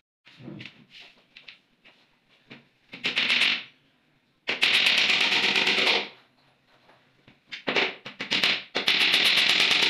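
Hammer rapidly tapping nails into the edge of a melamine-faced particleboard panel. The strikes come in several quick runs, with the longest runs in the middle and near the end, and a few lighter single taps between them.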